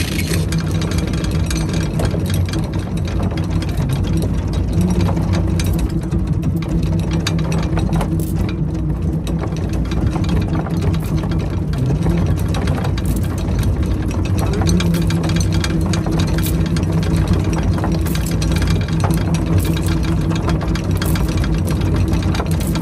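Charter boat's engine running steadily at idle, with occasional light clinks of anchor chain as it is hauled in by hand over the bow.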